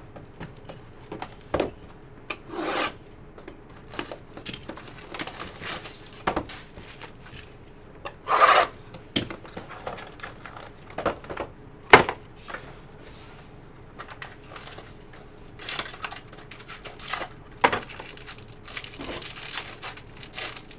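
Trading-card packs and cards handled on a table: scattered rustling, scraping and tearing of pack wrappers and card sleeves, with sharp clicks and taps, the sharpest about twelve seconds in.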